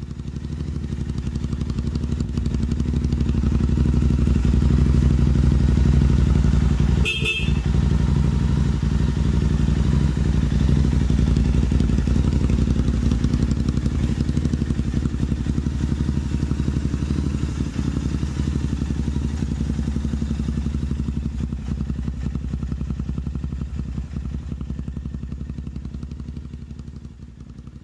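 Motorcycle engine idling steadily, heard close to the exhaust muffler, fading in over the first few seconds and out near the end. A short click sounds about seven seconds in.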